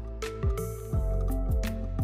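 Background music: held notes over a steady beat of low kick-drum hits, about two a second.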